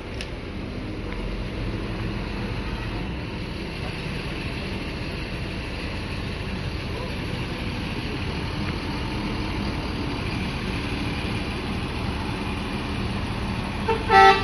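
Tour coach's engine running in a steady low rumble as the coach pulls out of its parking spot. Near the end comes one short, loud horn blast.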